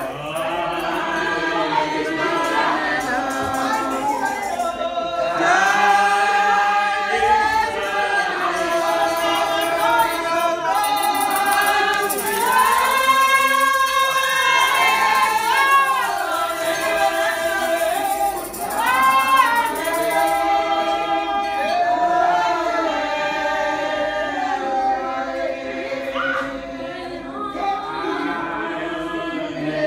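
Church congregation of men and women singing together in a slow melody with long held notes.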